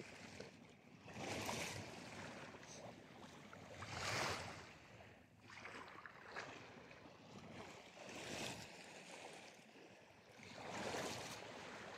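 Small waves of a choppy sea washing against the shore: about four swells of rushing, splashing water a few seconds apart, the loudest near the middle.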